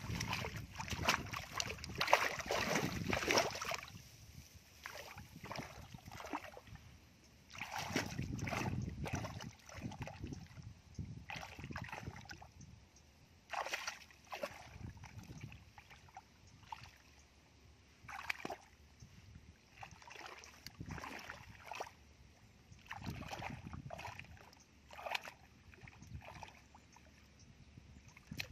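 Bare feet sloshing and splashing through shallow muddy water, with irregular wading swishes. They are loudest in the first few seconds and become quieter and more scattered later.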